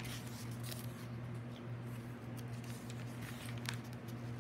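Thin pages of a hardback study Bible being handled and turned: faint, scattered paper rustles and soft clicks over a steady low hum.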